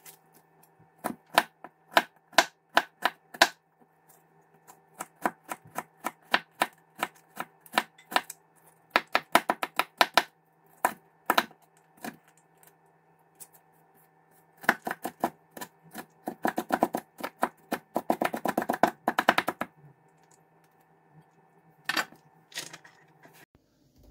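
A cleaver-style kitchen knife chopping and dicing an onion on a plastic cutting board: sharp knocks in irregular runs with short pauses, and a fast flurry of chops near the end.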